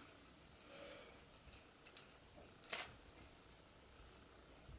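Near silence with faint rustling and a few light clicks as a twine-tied bundle of glittered decorations is handled; the clearest click comes just past the middle.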